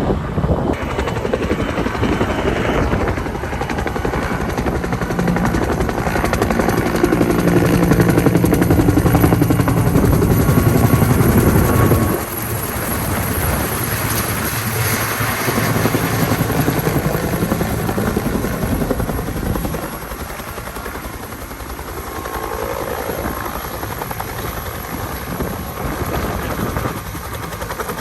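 Helicopter rotor and engine running, with the fast rhythmic beat of the blades. It is loudest from about seven to twelve seconds in, drops sharply at about twelve seconds, and stays lower through the later part.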